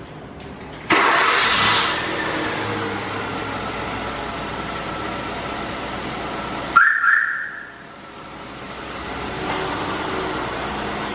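Hyundai Avante HD engine started by a remote starter about a second in, then running steadily with a faint steady whine. Near seven seconds a sharp, brief burst is the loudest moment, after which the running sound drops away and slowly builds again.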